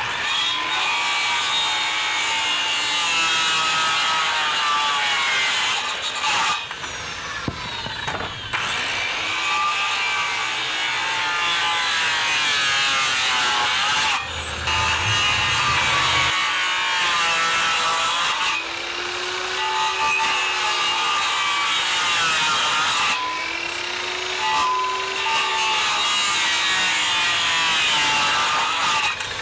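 Power saw cutting out the step notches of a wooden stair stringer, in several passes with short breaks, the motor's pitch sagging and recovering as it cuts.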